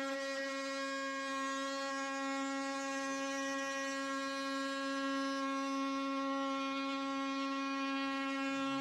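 A power tool's motor running with a steady, unchanging high buzz.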